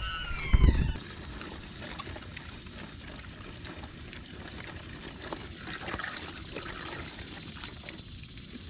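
Water running steadily from a garden hose, a soft pouring trickle.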